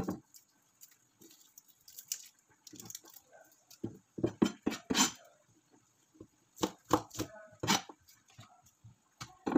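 Kitchen knife chopping garlic and onion: irregular sharp knocks coming in short clusters.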